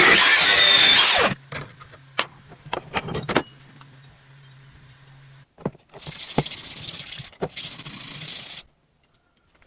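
Rusty knife being worked on with abrasive tools: a loud burst of scraping or grinding noise, then a run of sharp metallic clicks and taps over a faint steady hum, then more abrasive scraping in two stretches, each cutting off abruptly.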